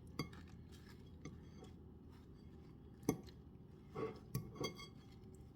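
Fork clinking against a plate or dish a few times while a serving is eaten, the sharpest clink about three seconds in and a few lighter clinks about a second later.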